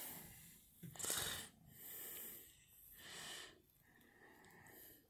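Faint, breathy hissing close to the microphone, coming and going about once a second: close breathing.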